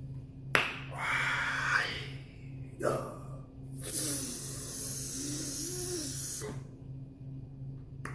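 A man's sharp hissing breaths through the mouth, one about a second in, a short one near three seconds and a long hard blow from about four to six and a half seconds: he is cooling his mouth against the burn of hot, spicy instant noodles. A faint steady low hum runs underneath.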